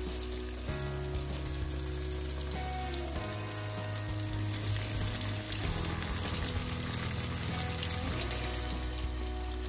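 Tofu cubes deep-frying in hot oil: a steady crackling sizzle. Background music with sustained chords and bass notes plays underneath.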